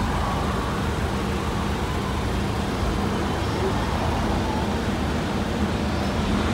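Steady traffic and car-engine noise: an even rumble with a low hum running under it.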